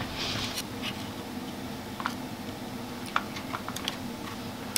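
Scattered light clicks and taps of a soldering iron and desoldering wick worked against a synthesizer circuit board, with a brief soft hiss just after the start, over a steady low hum.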